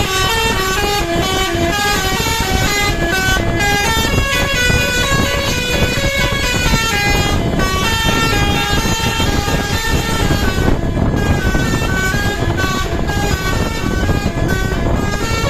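Basuri telolet horn on a bus playing a long running tune of short notes that step quickly up and down, over a steady low rumble.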